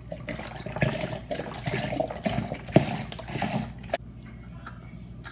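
Juice poured from a plastic pitcher into a child's sippy cup, with a sharp knock near the middle. The sound stops abruptly about four seconds in.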